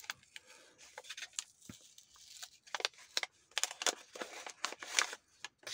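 Small kraft-paper packet being pulled open and handled, giving irregular paper crinkles, rustles and crackles, busiest from about three and a half to five seconds in.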